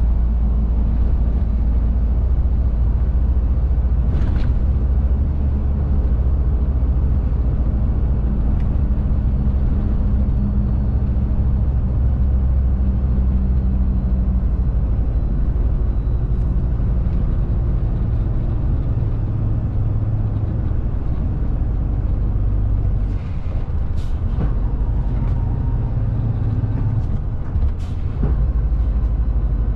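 Cab interior of a fully loaded Shacman X3000 heavy truck on the move: a steady low engine drone under road and wind noise, the engine's pitch changing a few times. A few sharp clicks sound about four seconds in and again near the end.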